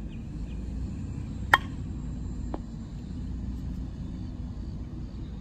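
Ping of a Miken Freak Primo slowpitch softball bat hitting a pitched ball once, about a second and a half in, with a short ring. A much fainter click follows about a second later, over a steady low rumble.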